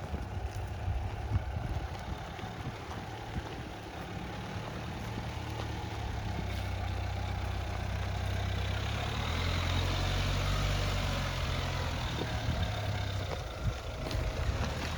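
Dacia Duster 1.5 dCi four-cylinder turbodiesel engine running at low revs, off-road. It gets louder through the middle and eases off again near the end, with a few scattered knocks.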